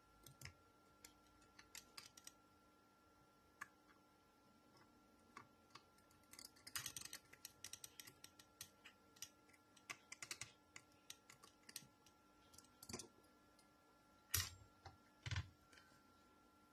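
Scattered small clicks and taps of tools and parts being handled on an opened MacBook during repair, in a quick flurry about seven seconds in and again around ten seconds, with two louder knocks near the end.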